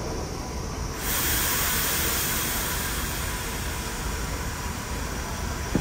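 Steady hissing noise over a low background rumble. The hiss jumps louder and brighter about a second in and carries on.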